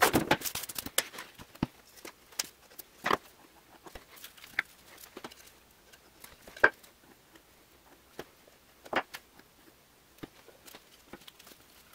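Ipe hardwood pieces being handled and set down on a workbench covered in plastic wrap: plastic film crinkling at first, then scattered sharp knocks and taps of wood on the bench, the loudest a little past halfway.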